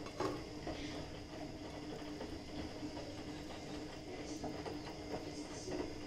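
Clear plastic fork scraping and clicking against a plastic takeaway container as noodles are pushed out onto a plate, with a sharper click just after the start. A steady hum runs underneath.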